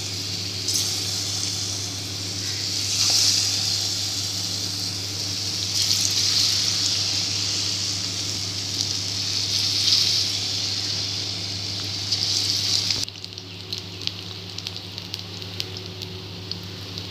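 Gram-flour-battered okra pieces deep-frying in hot oil in a kadhai: a dense steady sizzle that swells several times, then drops abruptly about thirteen seconds in to a quieter bubbling with scattered crackles. A steady low hum runs underneath.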